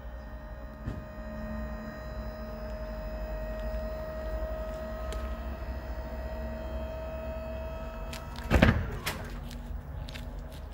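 Electro-hydraulic pump of a BÄR 1500 kg truck tail lift running with a steady whine, rising slightly in pitch, as the platform tilts up to close. The whine stops about eight seconds in, followed moments later by one loud clunk as the platform reaches its closed position.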